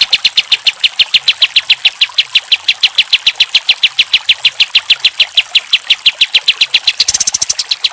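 Olive-winged bulbul (kapas tembak) calling: a long, very even run of sharp repeated notes, about six or seven a second, switching near the end to a quicker, higher-pitched burst.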